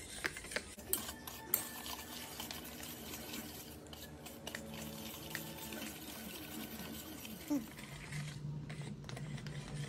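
Foil bag crinkling and rustling as cocoa powder is shaken out into a bowl, with a few small clicks and taps in the first second or two, over a faint steady hum.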